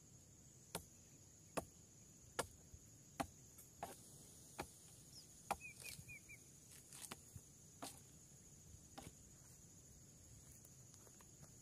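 A row of sharp knocks, like wood being struck, about one every 0.8 s for the first half and then more irregular and weaker. A steady high insect drone sounds throughout, and a few short bird chirps come about halfway through.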